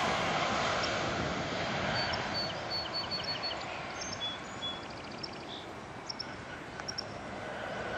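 Jet engine noise of a landing US Airways Boeing 737, a steady rush that slowly fades as the airliner rolls away down the runway. A small bird chirps in quick short runs from about two seconds in.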